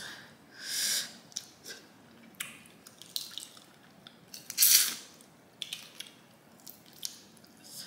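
Close-up eating sounds of crawfish being peeled by hand: scattered small clicks and cracks of shell, with two loud airy slurps, one about a second in and a louder one near the middle.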